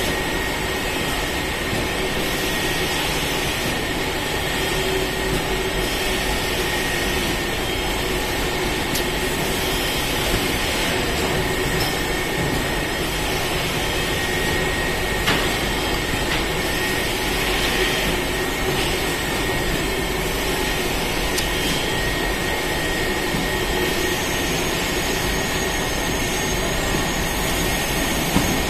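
Automatic cartoning machine running steadily, packing bags into cartons: continuous mechanical noise with a steady high whine and a few sharp clicks.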